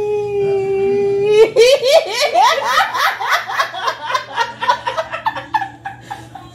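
A woman's voice holds one long note, then breaks into loud, rapid laughter about a second and a half in; two women laughing together.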